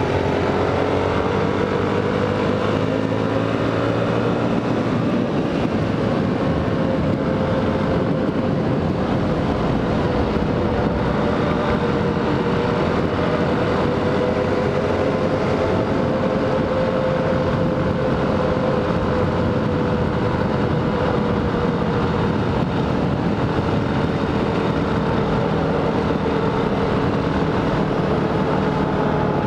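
Dual sport motorcycle's single-cylinder engine running at steady cruising revs, with wind rushing over the helmet-mounted microphone. The engine note rises a little in the first few seconds and sags slightly near the end.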